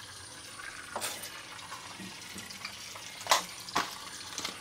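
Steady churning and splashing of water from a small battery-powered toy speedboat's propeller as it runs around a water-filled plastic track. A few sharp clicks stand out over it.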